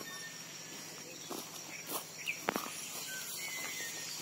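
Faint footsteps on a dirt path strewn with dry leaves, a few soft crunches around the middle, over a steady high insect drone.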